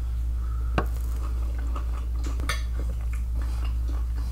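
Metal spoon clinking against a bowl while eating, with one sharp clink about a second in, scattered lighter taps and soft chewing between, over a steady low hum.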